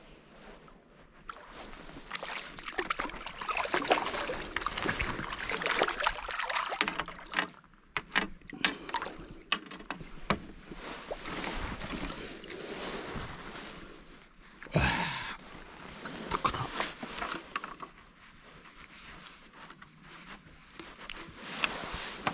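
Water splashing and sloshing as a hooked crucian carp is brought to the surface and landed, with handling rustles and a run of sharp clicks partway through.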